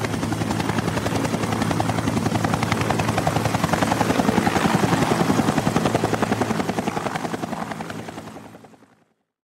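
Helicopter rotor beating rapidly and evenly with engine noise underneath, growing louder toward the middle and fading away about nine seconds in.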